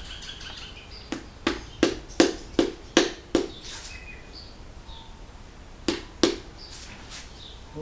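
A mallet tapping a piston down into its cylinder bore: a quick run of about eight sharp taps, then two more a few seconds later.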